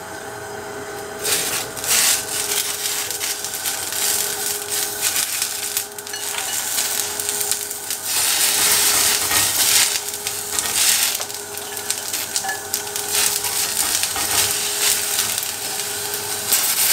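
Fresh green beans sizzling as they are laid onto a smoking-hot ridged cast iron grill pan. The sizzle starts about a second in and swells in surges as more beans go down.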